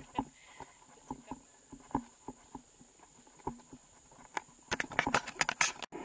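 Footsteps on a trail, about two to three steps a second, followed by a denser patch of clicks and rustling near the end. A faint steady high-pitched tone runs underneath.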